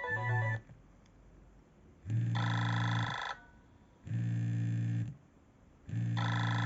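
Nokia E65 ringtone playing: a low, buzzy tone in bursts about a second long, repeating about every two seconds.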